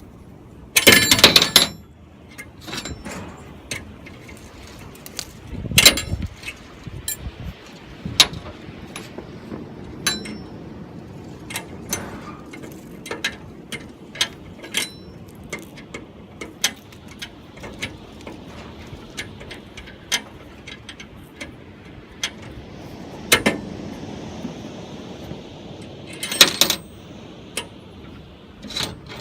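Metal hand tools clinking and knocking as a chainsaw scrench and a small wrench tighten a screw and nut on the top bracket of an Alaskan chainsaw mill: scattered short clicks, with louder clattering bursts about a second in, around six seconds and near the end.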